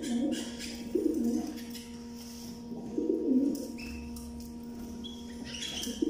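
A pigeon cooing three times in short low coos, with a few faint high chirps from a small cage bird and a steady low hum underneath.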